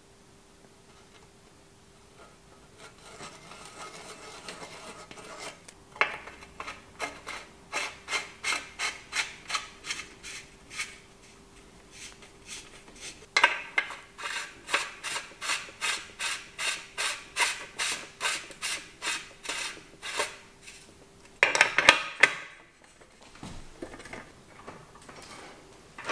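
Bicycle bottom bracket cup being screwed by hand into the frame's threaded bottom bracket shell, the metal threads rasping with each twist, about two a second, in two long runs, with a louder burst of scraping near the end.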